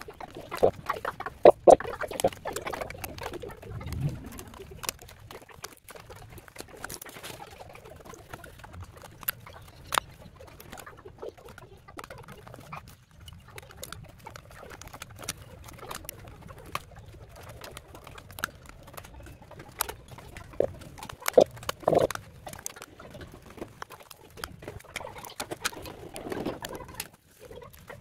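Plastic clicking, snapping and scraping as an orange plastic terminal cover is pried off a BYD blade battery pack with a screwdriver: irregular small clicks, with louder snaps about a second and a half in and again about three quarters of the way through.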